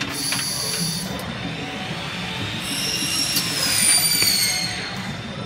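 JTE RF Shuttle radio-frequency welding machine running: a high-pitched squealing whine over a steady low hum. The whine stops about a second in, returns about two and a half seconds in, grows louder while sliding slightly down in pitch, and fades near the end.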